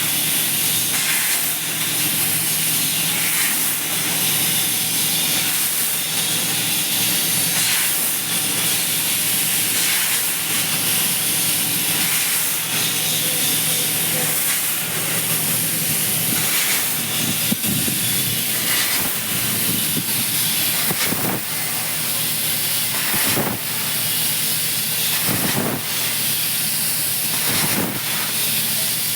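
CNC fiber laser cutting machine at work: a steady hiss of assist gas blowing through the cutting head, with a low hum beneath and short louder puffs now and then.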